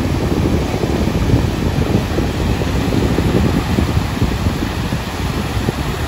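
Wind blowing on the microphone, a steady low rush, with small sea waves washing onto a sandy beach.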